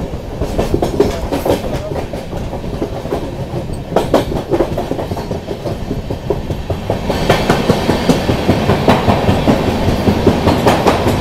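Wheels of a moving LHB passenger train clattering over the rails under a steady rumble, heard from the open coach door. About seven seconds in the train enters a rock tunnel, and the clatter turns louder and sharper, with a regular beat of about three knocks a second.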